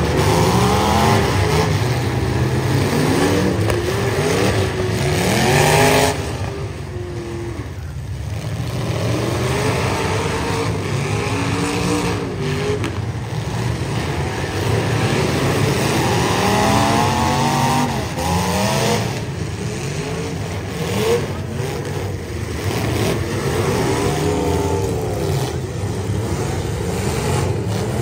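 Several demolition derby cars' engines revving hard, pitch rising and falling over and over as the cars push and ram one another.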